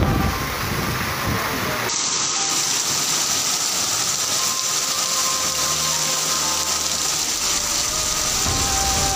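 Heavy storm rain pouring down as a steady rushing hiss, its sound changing abruptly about two seconds in.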